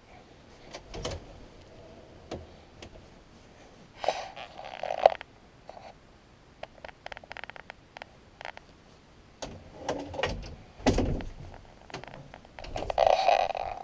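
Handling noise around louvered closet doors: scattered clicks and knocks, with three short bouts of scraping and rustling, the sharpest click about five seconds in.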